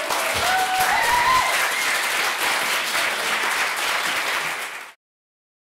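Audience applauding steadily, ending abruptly about five seconds in.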